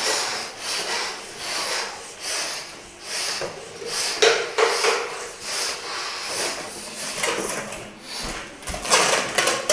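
Children blowing up rubber balloons: a string of short, breathy puffs of air blown into the balloons, about one or two a second.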